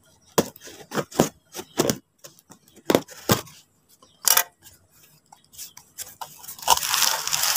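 Scissors snipping through packing tape on a cardboard box in a run of sharp snips. Near the end comes a longer rustle and scrape as the cardboard flaps are pulled open.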